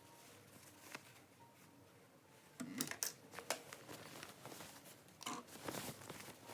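Cloth being handled, with rustling and a few sharp clicks, starting about two and a half seconds in after a faint stretch.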